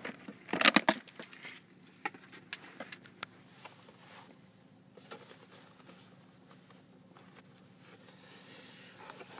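Packaging being handled while a camera is taken out of its box: a burst of crackling and clicks from cardboard and plastic about half a second in, then scattered small clicks and rustles.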